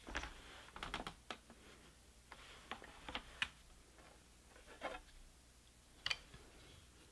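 Ashford rigid heddle loom worked by hand for plain weave: scattered light clicks, taps and short scrapes in small irregular clusters as the heddle is shifted and beaten and the weft is passed through the shed.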